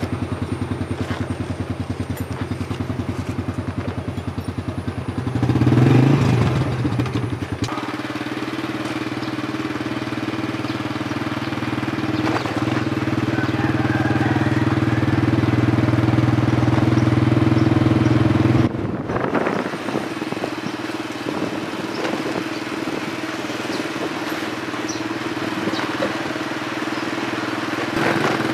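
Small motorcycle engine idling with even firing pulses, revving as it pulls away about six seconds in, then running steadily at road speed with road and wind noise, easing off briefly about two-thirds of the way through.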